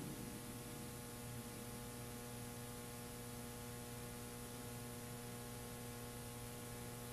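Faint, steady electrical mains hum: a low buzz made of several steady tones that does not change.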